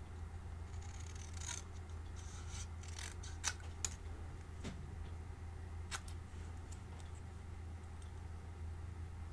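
Small hand scissors fussy-cutting a strip of cardstock around a stamped sentiment: a few short, irregular snips, the sharpest two close together about three and a half seconds in.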